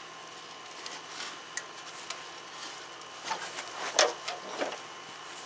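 Steel riding-mower deck being turned upside down on the grass: a few clanks and rattles of the deck and its pulleys, the loudest knock about four seconds in.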